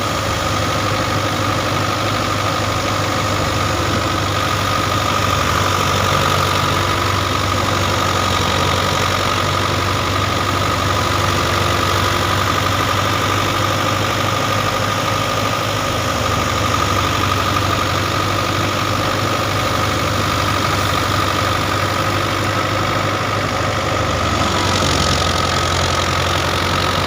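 Farm machinery engine running steadily at a constant speed, with a steady whine over the low engine sound.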